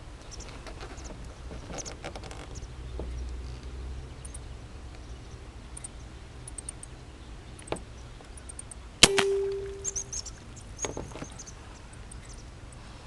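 A single air rifle shot about nine seconds in: a sharp crack followed by a short metallic ring that fades within about a second, over steady outdoor wind rumble.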